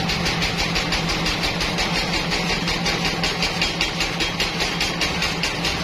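Large vertical band sawmill running, with a steady low hum and a fast, even mechanical pulsing, as a hardwood log on the rail carriage is fed into the blade.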